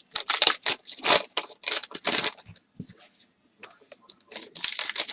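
Trading cards and packaging being handled close to the microphone: quick crinkling and rustling in short bursts, with a brief lull near the middle.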